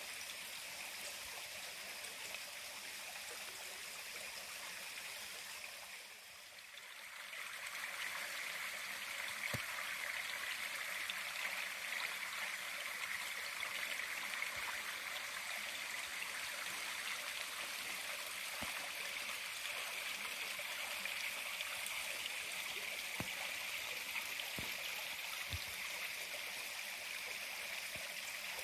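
Steady rushing of a nearby stream, dipping briefly about a quarter of the way in and then coming back louder.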